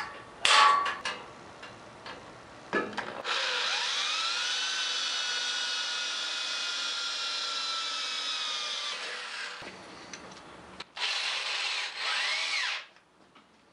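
Cordless drill boring through the kart's metal rear wing: a couple of knocks in the first second, then the motor spins up about three seconds in and runs steadily for about six seconds, its pitch sagging slightly under load, followed by a second, shorter burst near the end.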